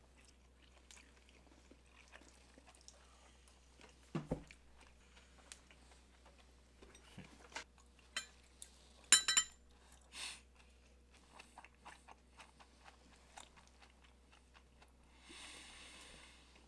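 Quiet mealtime sounds: chewing, with metal spoons and chopsticks tapping and scraping against ceramic plates and bowls. A dull knock about four seconds in and a sharp, ringing clink of metal on a dish a little after nine seconds are the loudest.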